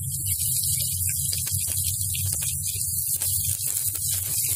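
Sliced onions added to hot oil in a kadai, sizzling with scattered crackles that grow denser near the end, over a steady low hum.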